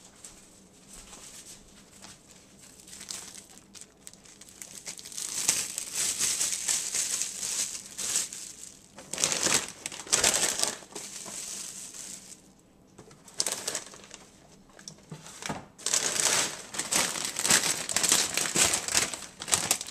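Thin plastic bags crinkling as they are handled and opened out by hand, in irregular crackly bursts. Quiet for the first few seconds, then louder from about five seconds in, with short pauses.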